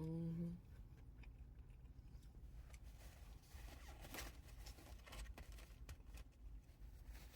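A short hummed "mm" at the start, then faint chewing and mouth sounds of someone eating a bacon burger, with scattered soft clicks and rustles.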